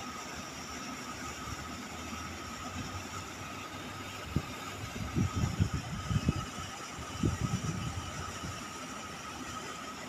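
Steady outdoor background hum, with gusts of wind rumbling on the microphone between about four and eight seconds in.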